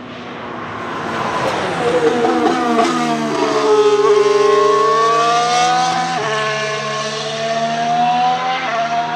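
McLaren MCL34 Formula 1 car's Renault E-Tech 19 turbocharged V6 hybrid engine passing at speed, loudest as the car goes by. The pitch climbs as it accelerates and drops sharply at quick upshifts, about six seconds in and again near the end.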